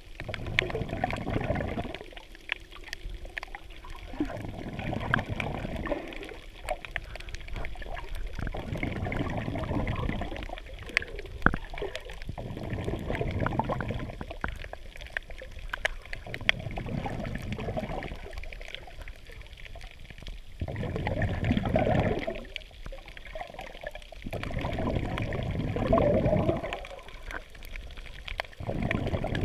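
Water sloshing and gurgling around a GoPro Hero 3 Black's waterproof housing just below the surface. It swells and fades every few seconds, with scattered small clicks.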